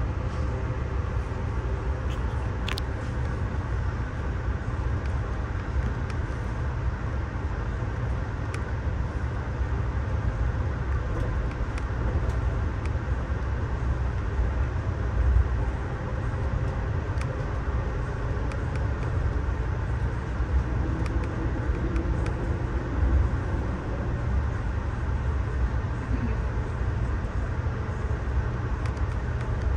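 Steady low rumble of a Budd Amfleet passenger coach rolling along the track, heard from inside the car, with faint scattered clicks.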